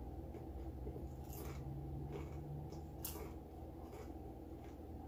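Chewing crunchy ghost pepper tortilla chips: a few short, sharp crunches, the loudest about a second and a half in and about three seconds in, over a low steady hum.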